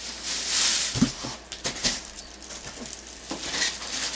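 Packaging being handled: a brief rustle of plastic wrap, then a string of irregular light knocks and clicks as the television is taken out of its box.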